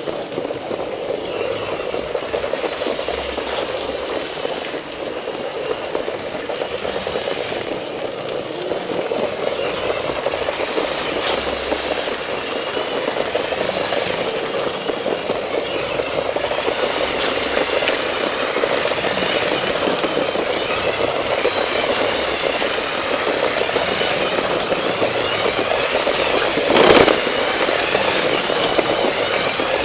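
LEGO 9V train running at full speed on its plastic track, heard from on board: a steady whirring and clattering of the motor and wheels that grows a little louder, with the carriages rattling. About 27 seconds in there is a sharp loud knock as the train jolts.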